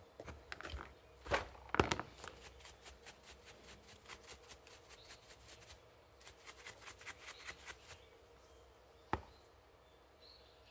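A stiff-bristled brush scrubbing a small coil-over shock absorber in quick back-and-forth strokes: two runs of rapid short scratches, about six a second. There are two louder knocks early on and a single sharp click near the end as the shock is handled.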